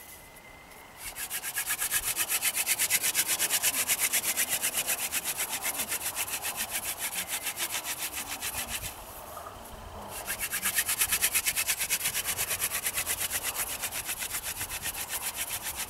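Hand-drill fire-making: a Jerusalem artichoke spindle spun back and forth between the palms, drilling into chaga fungus to build a coal. A fast, even rasping of several strokes a second, with a short break about nine seconds in before the drilling resumes.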